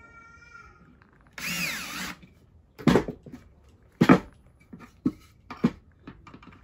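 Cordless drill running into a wooden block in a short burst of just under a second, its pitch wavering under load. Then come two loud knocks and several lighter clicks and taps of wood and tools being handled.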